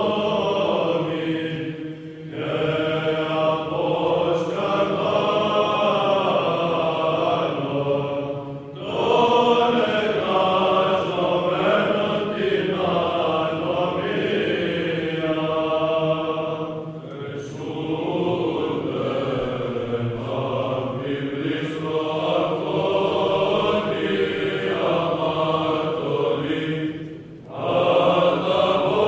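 Orthodox chant sung in long phrases, with brief pauses between them about every six to nine seconds.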